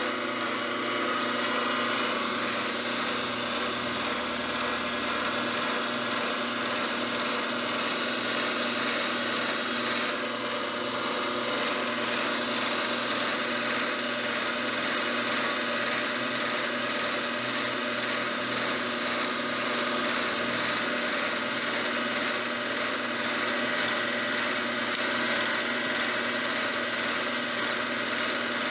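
Vertical milling machine running with an end mill climb-cutting a long slot in a metal workpiece held in a vise: a steady, even machining whine of motor and cutter.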